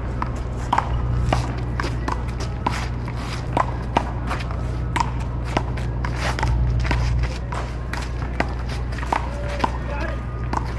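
Paddle-ball rally: a ball knocked sharply back and forth by paddles and bouncing off the court, one or two knocks a second, many with a short ringing ping. A steady low rumble runs underneath.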